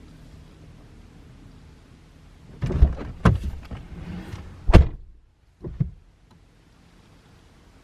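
A quick run of knocks and clicks from plastic car interior trim being handled and pried at, the loudest near the end, followed by two softer clicks.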